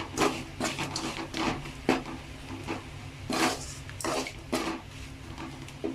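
Spoon stirring and scraping a thick masala around a kadai, in irregular strokes, while the mix is worked together with salt.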